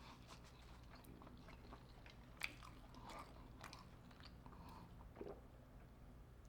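Faint close-up chewing of crunchy hot honey fried prawns: soft scattered crunches and mouth clicks, with a sharper crunch about two and a half seconds in.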